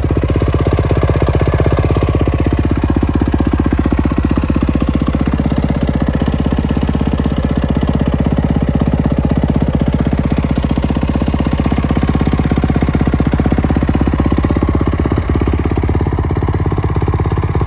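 2022 Kawasaki KX450's single-cylinder four-stroke engine idling steadily.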